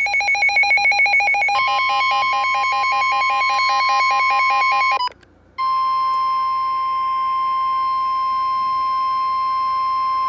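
Emergency Alert System alert tones: a rapidly pulsing electronic tone for about five seconds, a half-second break, then one steady tone, the 1050 Hz warning alarm tone of NOAA Weather Radio.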